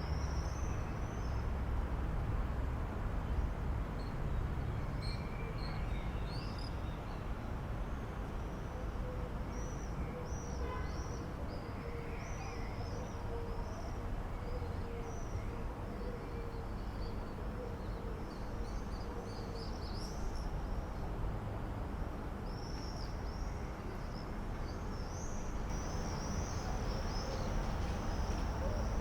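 Outdoor ambience of small birds chirping and calling, many short high notes in a row and thicker towards the end, over a steady low rumble. A faint steady hum runs through the middle.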